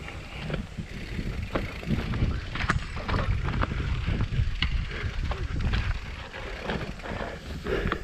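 Mountain bike rolling downhill over a rough dirt trail: wind buffeting the microphone, with tyre noise and frequent clicks and rattles of the bike over bumps.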